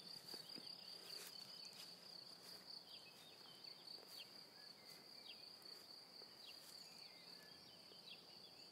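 Near silence with the faint, steady, high trill of crickets, and scattered faint short chirps.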